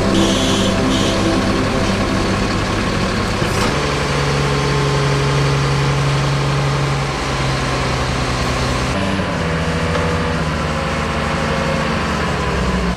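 Diesel engine of a Terex PPM truck-mounted mobile crane running steadily, its pitch shifting about four seconds in and again about nine seconds in.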